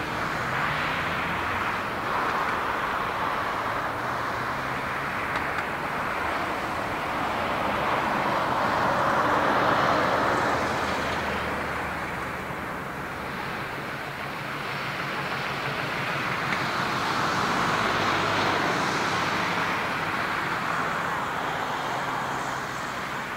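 Boeing 747-400 airliner's four jet engines at takeoff thrust: a steady roar that swells twice as the jet rolls down the runway, the jet lifting off near the end.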